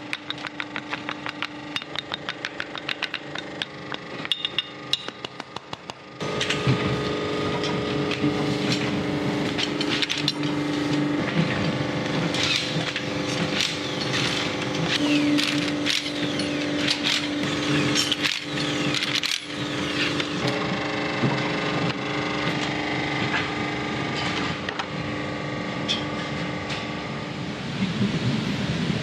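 Pencil-factory machinery working wood. Rapid, regular clicking comes first; about six seconds in, a louder, dense, steady machine noise with a held hum takes over.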